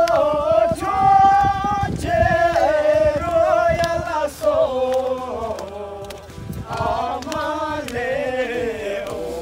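A group of people singing a song together, a man's voice leading, on held notes that change pitch, with hands clapping along.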